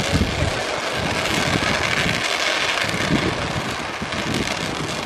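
Ground fountain firework spraying sparks: a steady, dense hissing crackle, with a few low thumps.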